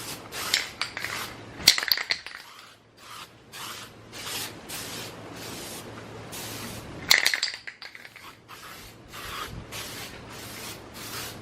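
Aerosol spray can of primer hissing in a series of short passes, laying a light first coat on bare car-body metal. The can is nearly empty. Two of the passes, about 2 s and 7 s in, are louder.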